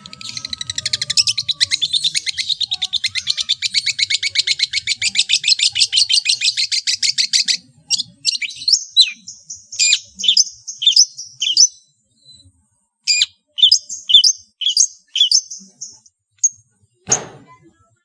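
Long-tailed shrike singing a mimicking song: a rapid, seven-second trill of quickly repeated notes, then a string of short, sharp notes that slide downward, and one harsh rasping note near the end.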